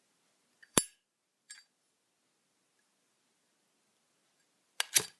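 Zippo lighter handled: a sharp, ringing metal clink just under a second in, a softer click about half a second later, and a loud double clack near the end.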